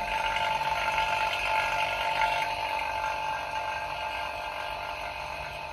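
Refrigeration compressor machinery running steadily with a constant whining hum, easing off near the end.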